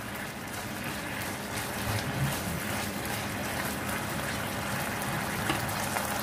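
Marinated chicken legs bubbling and sizzling in oil and their own juices in an open pan after steaming under a lid: a steady hiss with faint crackles.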